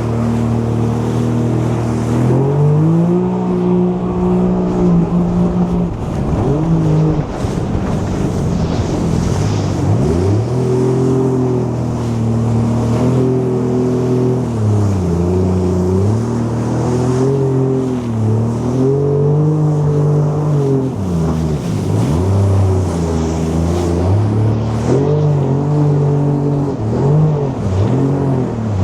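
Jet ski engine running under constant throttle changes, its pitch climbing and falling over and over as the rider circles in donuts.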